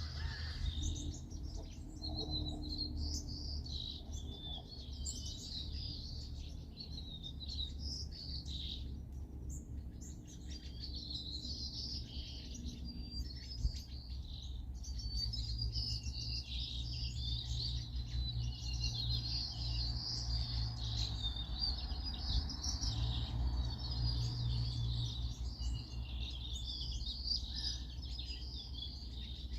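Many small songbirds chirping and twittering at once, a continuous busy chorus of quick high calls, over a low steady rumble that swells into a faint hum in the second half.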